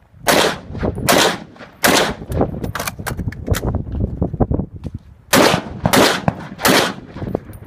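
Handgun fired in quick strings: three loud shots under a second apart, fainter cracks in between, then three more loud shots near the end.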